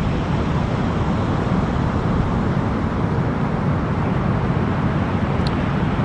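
Steady roar of ocean surf breaking.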